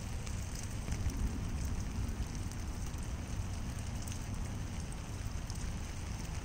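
Steady rain falling on water and wet leaves, with scattered drops tapping and a low rumble underneath.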